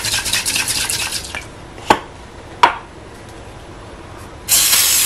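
An aerosol cooking spray can shaken hard, rattling quickly for about a second and a half, then two sharp knocks, and near the end a steady hiss as the spray goes out to grease a cake pan.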